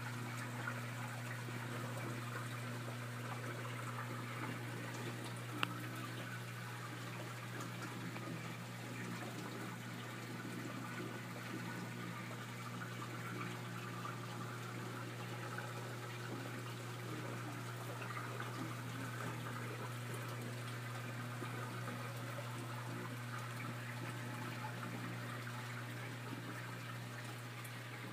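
Reef aquarium sump running: water splashing and trickling steadily through the sump, over a steady low hum.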